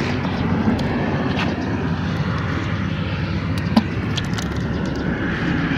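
A steady low engine drone, with a few faint clicks over it.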